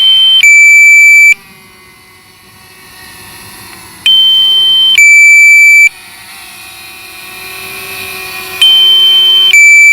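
Drone remote controller's low-battery alarm: a loud electronic two-tone signal, a high tone then a lower one, each just under a second, repeating about every four and a half seconds. It warns that the Mavic Mini's battery is low.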